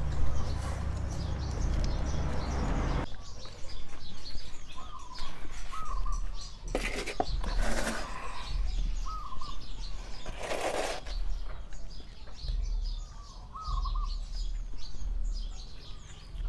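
A small plastic pot scooping and scraping through potting mix of tamarind bark and cow manure in a large plastic tub for the first few seconds, then a few short rustles of gloved hands working the mix. A small bird chirps briefly several times in between.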